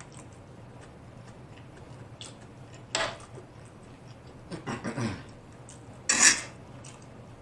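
Fork scraping and picking food from a tray, with eating sounds from the mouth: a few short separate bursts over a low steady hum, the loudest about six seconds in.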